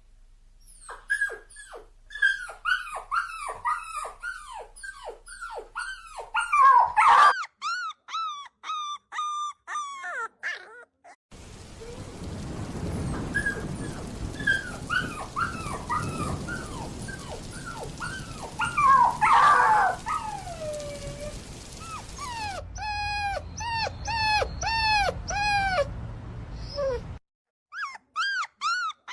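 Puppy whimpering and yelping in long strings of short, high cries, each falling in pitch. From about 11 to 22 seconds a steady rushing noise runs under the cries.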